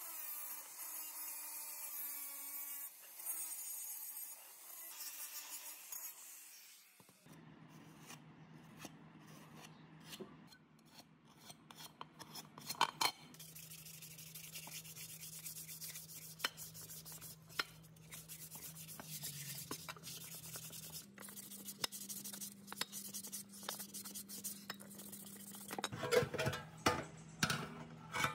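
Angle grinder with a sanding disc whining as it sands a metal motor cover; its pitch shifts slightly under load, and it stops after about seven seconds. Then hand scrubbing of the part under a running tap, with scattered clicks, and near the end a run of loud clanks as a rusty steel plate is handled on a steel checker-plate bench.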